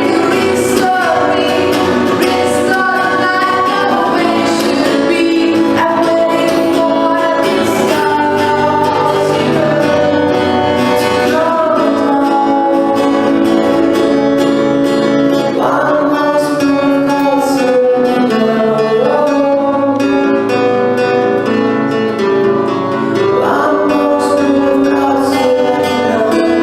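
A song performed by a singer with guitar accompaniment: sustained guitar chords under a voice holding long notes.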